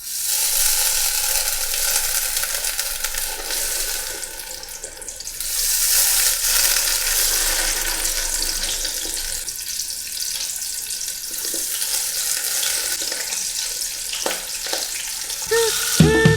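Battered chicken nuggets sizzling and crackling in hot oil in a fryer as they are dropped in one by one, a dense steady hiss that swells about six seconds in.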